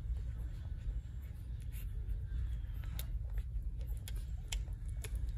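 Newborn puppies nursing: faint, scattered sucking clicks and the rustle of fur and blanket as they are nudged onto the teats, over a steady low hum.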